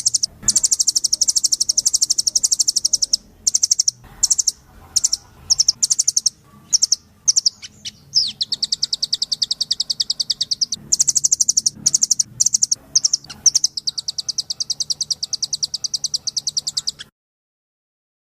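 Recorded songbird 'masteran' song for training songbirds: fast, high-pitched trills in several long runs broken by short chirping bursts, cutting off suddenly about a second before the end.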